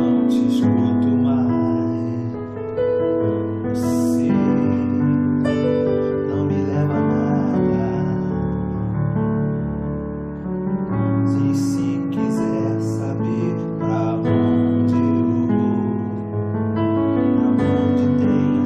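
Piano-like VST sound played live from a MIDI keyboard controller: held chords over a bass line, changing every second or two.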